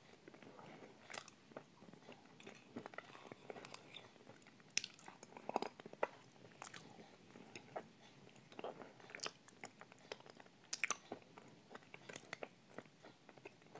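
Quiet close-up eating sounds: a thick, creamy dessert being spooned and chewed, with scattered short wet mouth clicks and smacks.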